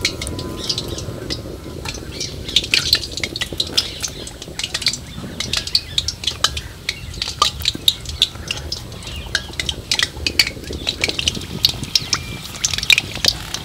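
Aloo samosas deep-frying in hot oil: a dense, irregular crackle of small sizzling pops, over a steady low rumble.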